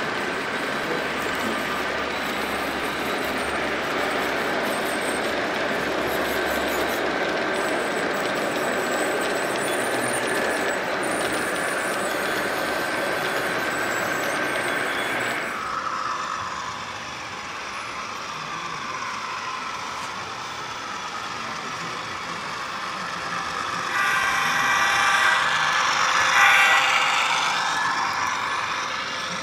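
Model trains running on a layout's track: a steady rumble of wheels and motors with a faint whine. About halfway through it drops suddenly to a quieter rolling, then grows louder with rattling near the end as a double-stack container train crosses a steel trestle.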